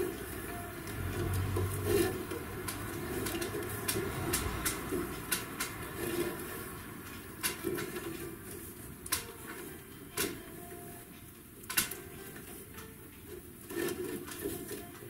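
Irregular sharp knocks and clicks, about a dozen spread over the stretch, with a low rumble underneath in the first few seconds. These are sounds of hand upholstery work while the springs of an antique Voltaire chair's seat are lashed.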